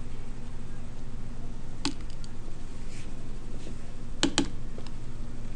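A few sharp clicks at a computer: one about two seconds in and a quick pair just after four seconds. A steady low electrical hum runs underneath.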